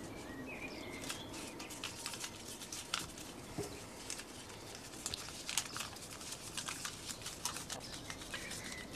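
Quiet background with a faint steady hiss and scattered soft clicks and crackles, plus a few faint short chirps about half a second in and again near the end.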